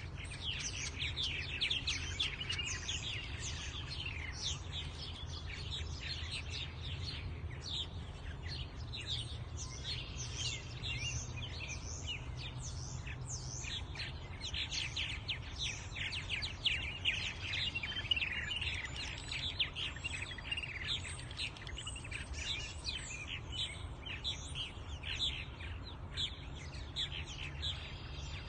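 A colony of purple martins chirping continuously, many short overlapping calls from several birds at once.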